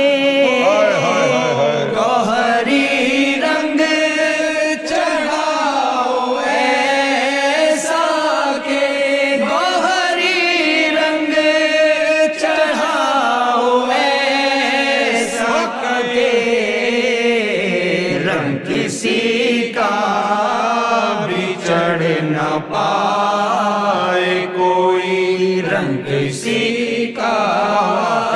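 A man singing an Urdu devotional qasida solo, in long, wavering held notes that flow on without a break.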